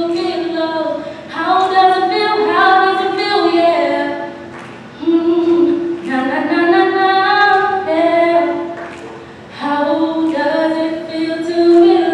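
A solo female voice singing unaccompanied into a microphone, in long held phrases broken by short pauses for breath, twice.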